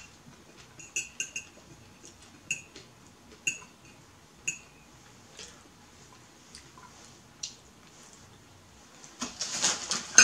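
Metal fork clinking and scraping against a ceramic plate: about ten short, sharp clinks with a brief high ring, spread irregularly over the first eight seconds. Near the end a louder breathy noise comes in.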